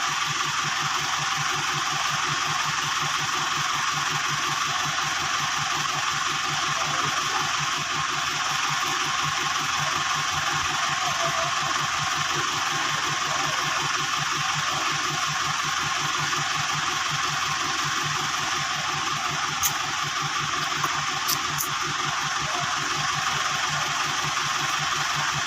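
An engine running steadily with a fast, even pulse, and a few sharp clicks near the end.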